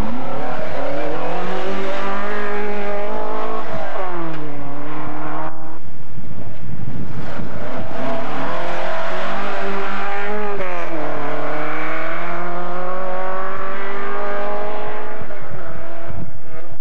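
Rally car engine revving hard on a gravel forest stage, its pitch climbing through the revs and falling sharply twice, about four and ten seconds in, as it changes gear. There is a brief break in the sound about six seconds in.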